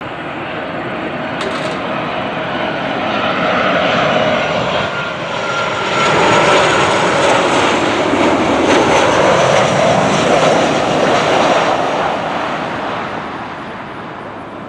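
Boeing 737-800 jet engines on final approach: a steady jet noise with a high whine in it. It grows louder as the airliner passes close by, peaks in the middle, then fades as the plane descends toward the runway.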